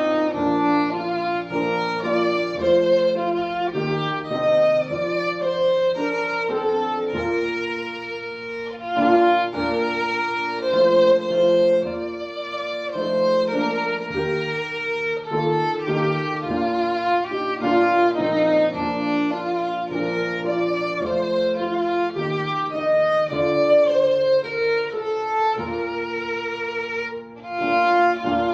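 Instrumental music: a melody of held, wavering notes over lower sustained notes, with the notes changing about every second.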